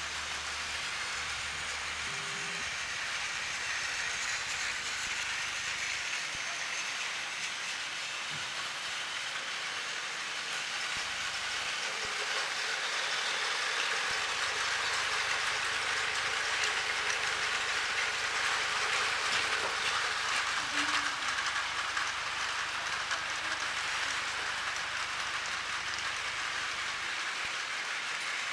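Battery-powered Plarail toy train running on plastic track: a steady clattering whir that grows a little louder partway through, then eases off.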